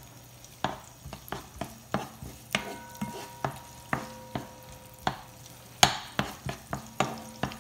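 A wooden spoon stirring onion and garlic in a nonstick frying pan, knocking and scraping against the pan in sharp, irregular clicks about twice a second, over a faint sizzle of the oil.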